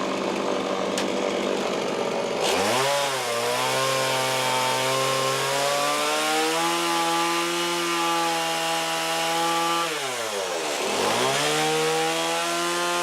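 Chainsaw running at high speed: its pitch rises and holds, drops back about ten seconds in, and climbs again a second later.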